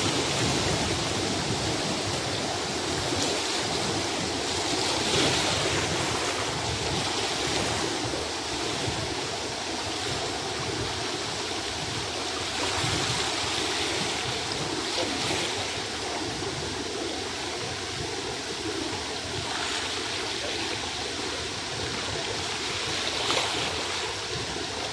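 Fast-flowing river water rushing steadily over rapids.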